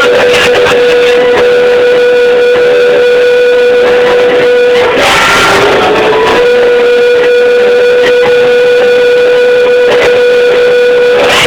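Loud guitar music with a long held note, broken by a short noisy passage about five seconds in.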